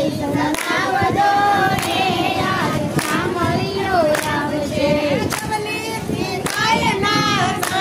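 A group of women singing a song together in unison, clapping their hands in a steady beat about once a second.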